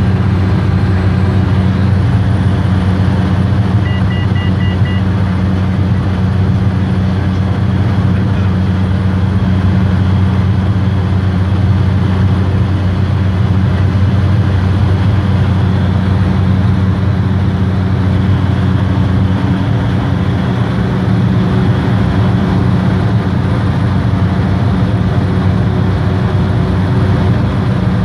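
Cessna 208 Caravan's Pratt & Whitney PT6A turboprop and propeller droning steadily in cruise flight, a loud, even low hum. A brief string of short, faint electronic beeps comes about four seconds in.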